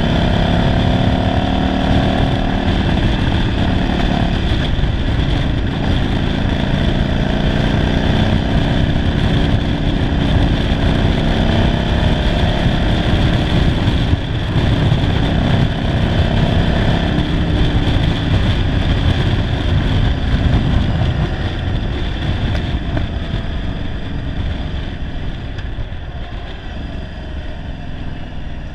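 1991 Yamaha Virago 750's air-cooled V-twin with a single-carburettor conversion, running under way with its pitch rising and falling with the throttle; the owner says it is running poorly. The engine eases off and grows quieter over the last several seconds.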